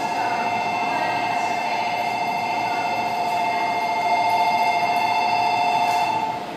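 Station platform departure bell: an electronic two-tone trill ringing steadily, cutting off about six seconds in, which signals that the train's doors are about to close.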